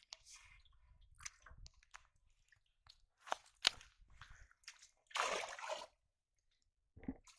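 Squelching and splashing in shallow muddy water as a person wades and works with their hands, with scattered small clicks. About five seconds in there is a louder splash lasting about half a second.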